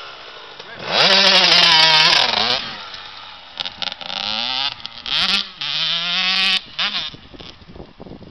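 KTM 85 two-stroke dirt bike engine revving hard as the bike pulls away: the pitch climbs steeply about a second in and holds loud, drops, then climbs again through the middle with a short blip, fading as the bike rides off near the end.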